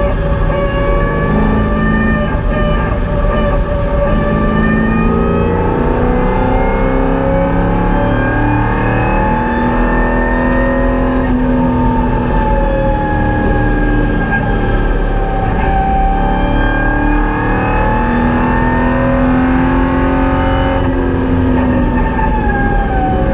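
Holden VY Commodore's LS1 V8 heard from inside the cabin under track driving, its note rising and falling in long sweeps as the revs climb and drop, over steady road and wind noise.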